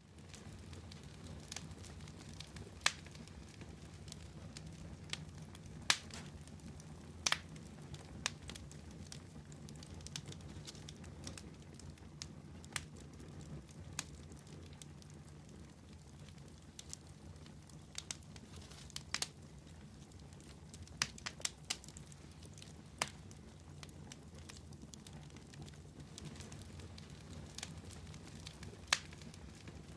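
Wood campfire burning: a steady low rush of flame with sharp, irregular crackles and pops, a few of them louder than the rest.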